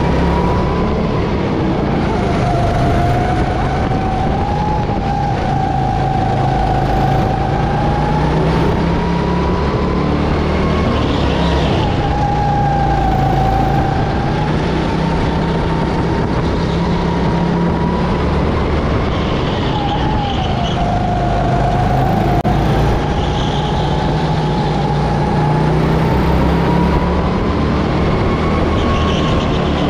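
Go-kart engine running at full race pace, heard close on board, its pitch rising slowly as it accelerates and dropping sharply when the driver lifts for corners, four times over.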